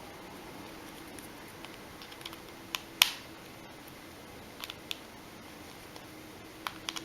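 Small sharp clicks and taps of a screwdriver and tiny screws on a phone's plastic frame as the screws are put back in, scattered and irregular, with one louder click about three seconds in.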